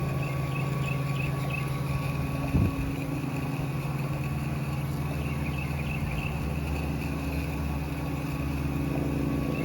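Gas-engine 9.6 gallon-per-minute Comet roof pump running steadily while soft-wash mix is sprayed onto a roof, with one brief knock about two and a half seconds in.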